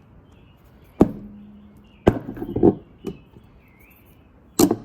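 Sharp metallic clacks and knocks from the subwoofer's big ferrite-and-steel magnet assembly being handled, about five in all, the second one leaving a short ringing tone.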